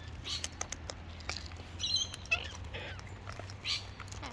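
Wild parrots giving short, soft high chirps among scattered sharp clicks and taps.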